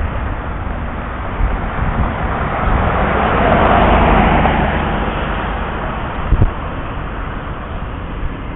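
Street traffic heard from a moving bicycle, with wind rumbling on the microphone; a passing vehicle rises and fades in the middle, and a short knock comes near the end.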